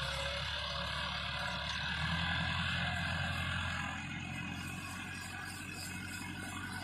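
Tractor diesel engine running steadily under load while pulling a disc harrow through ploughed soil, heard from a distance; it gets a little quieter about four seconds in.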